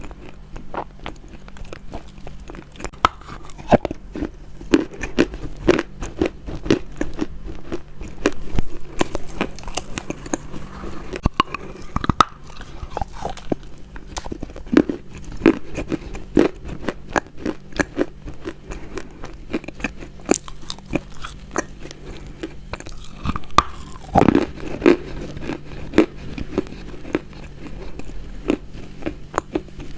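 Close-miked biting and chewing of crunchy food: a dense, irregular run of sharp crunches in bouts, over a faint steady low hum.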